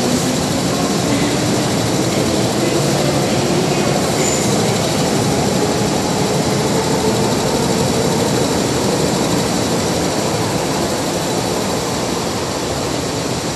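MTR Tsuen Wan Line M-Train electric multiple unit pulling out of an underground station platform and running off into the tunnel: steady rumble of wheels and running gear with some wheel squeal, easing slightly near the end as the train clears the platform.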